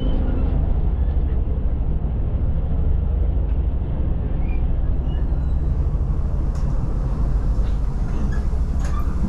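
Steady low rumble and running noise of a moving passenger train, heard from inside a second-class carriage.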